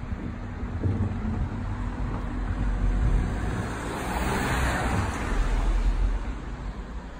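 Street traffic: a car passes by, its noise swelling to a peak about four to five seconds in and then fading, over a steady low rumble.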